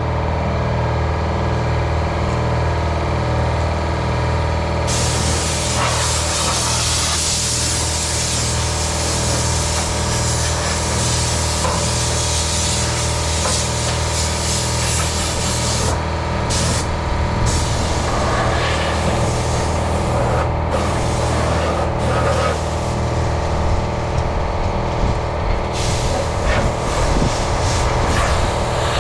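Compressed-air blow gun hissing loudly as it blows sanding dust off a car body. It starts about five seconds in and cuts off briefly a few times in the second half, over a steady low mechanical hum.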